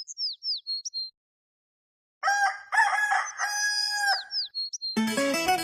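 A small bird chirping with quick falling notes, then after a brief silence a rooster crows once. Near the end a viola, the Brazilian ten-string guitar, starts playing.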